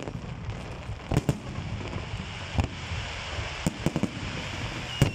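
Fireworks salute: six sharp bangs of shells bursting at uneven intervals over a steady background hiss.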